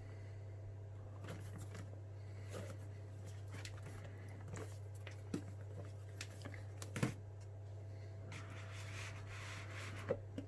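A cardboard phone box being handled and opened: scattered light taps, clicks and soft rustling of the packaging, with a louder tap about seven seconds in. A steady low hum runs underneath.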